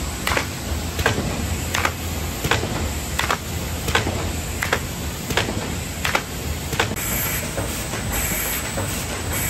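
Ecosystem Quick 106 thermal film laminator running, its sheet feeder cycling with a regular click about every three-quarters of a second over a steady machine hum. From about seven seconds in, short bursts of air hiss join each cycle.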